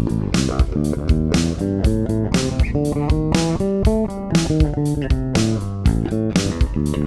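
Electric guitar with a Sugi mini-humbucker pickup playing a melodic single-note line, with sharply picked notes following each other quickly.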